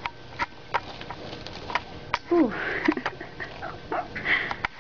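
Pug puppies at play: a scatter of small clicks and taps, snuffling breaths, and a short falling whimper a little over two seconds in.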